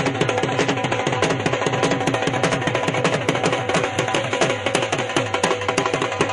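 Music driven by fast drumming: many quick strokes a second, with low drum notes that slide down in pitch.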